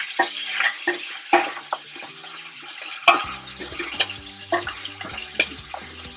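Chunks of beef sizzling in oil in a deep stainless steel pot as they brown, stirred with a wooden spoon that scrapes and knocks against the pot every second or so.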